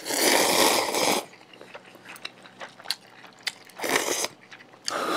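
Noodles slurped up with chopsticks: a long slurp lasting about a second at the start and a shorter one about four seconds in, with soft chewing and small clicks between.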